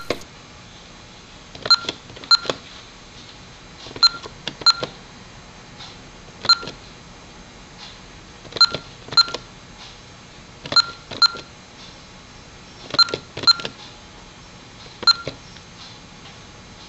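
Honeywell Vista 20P alarm keypad giving a short beep at each key press, twelve beeps in all. Most come in quick pairs, the two-digit entries for hour, minute, year, month and day, with one single beep for the AM/PM digit, and a last beep for the asterisk that leaves clock edit mode.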